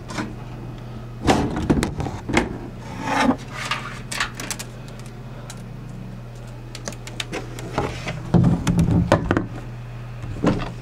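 Plastic-and-metal PC tower case being handled and pried at to get it open: scattered knocks, clicks and clatters in several short bunches, the busiest bunch a little past the middle, over a steady low hum.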